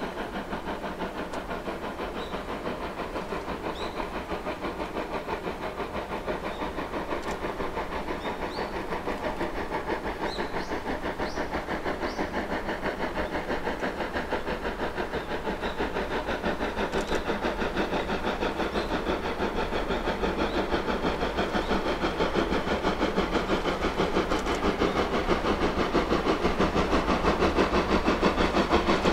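D51 200 class 2-8-2 steam locomotive working hard, its exhaust beating in a fast, steady rhythm of chuffs that grows steadily louder as it approaches.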